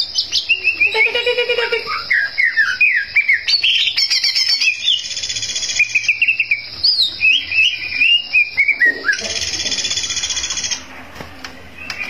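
Cucak ijo (green leafbird) singing a fast, varied song of chirps and slurred whistles. About nine and a half seconds in it breaks into a dense buzzing trill, then it goes quieter near the end.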